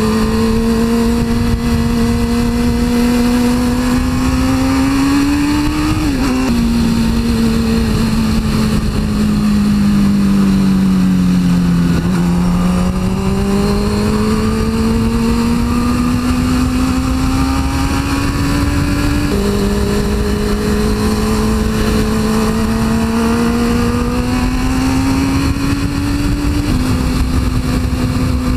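2002 Suzuki GSX-R 600's inline-four engine pulling the bike along: the revs climb, drop sharply with an upshift about six seconds in, then fall away for several seconds as the bike slows. They rise again, with two more upshifts later on, over steady wind noise on the microphone.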